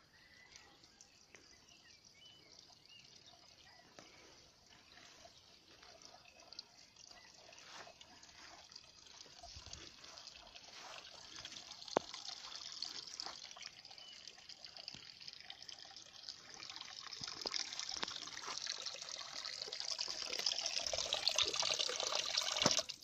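Spring water trickling from a pipe spout into a stone basin, growing steadily louder toward the end. A single sharp knock about halfway through.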